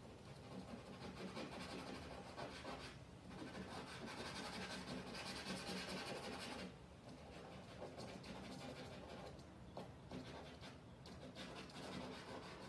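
Stick of charcoal scratching and rubbing across the drawing surface in continuous strokes, broken by a few brief pauses.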